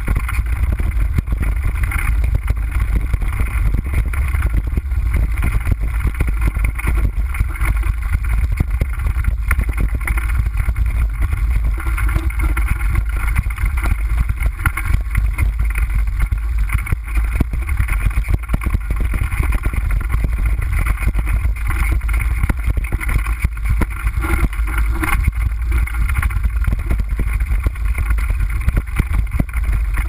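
Constant low wind rumble buffeting a bike-mounted camera's microphone on a fast mountain-bike descent, over a dense run of rattles and knocks from the bike bouncing over a rocky dirt trail.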